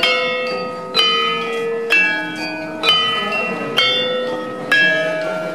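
Processional gamelan bronze gongs struck in a slow, steady beat, about one stroke a second, each stroke a different note that rings on until the next.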